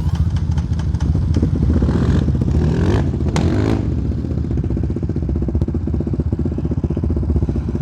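Single-cylinder four-stroke sport quad engines running, with a short rev partway through.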